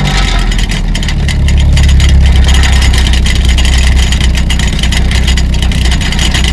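Car engine running with a drink-can prank device fitted to the exhaust, giving a loud, rapid rattling flutter over the low engine note; it gets a little louder about a second and a half in.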